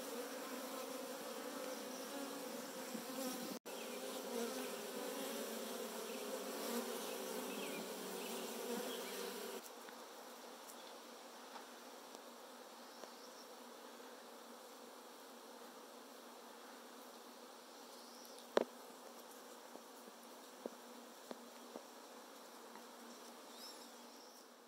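Saskatraz honeybees from a newly installed package buzzing at the hive entrance: a steady hum that drops to a fainter hum about ten seconds in. A single sharp click comes later on.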